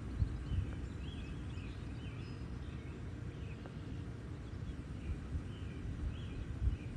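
Wind buffeting the microphone in low gusts, strongest near the start and near the end. Faint bird calls chirp repeatedly in the background.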